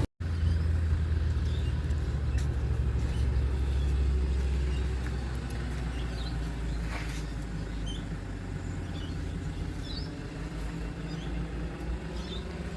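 Vehicle engine running with a low, steady rumble that eases after about five seconds, with faint bird chirps over it.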